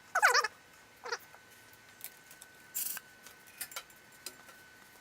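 Two short cries with a wavering pitch, a loud one at the start and a shorter one about a second in, like an animal's call. Light clicks, a brief hiss near three seconds and a faint steady high whine follow.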